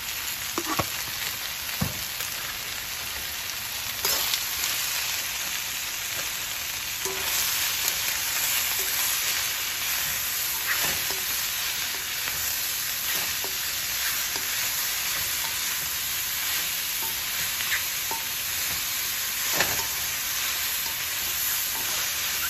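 Stir-fried vegetables sizzling steadily in a hot wok as they are stirred, with a few sharp clicks of the spatula against the pan.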